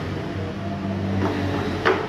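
Steady low hum with two knocks, a fainter one past halfway and a sharp, loud one near the end, typical of tools or parts handled during engine work.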